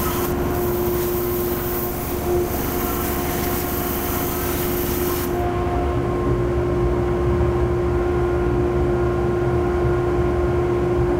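Band saw running as a thick hickory slab is fed through the blade, over a steady machine hum. About five seconds in, the high hiss cuts off and a steady low machine drone carries on.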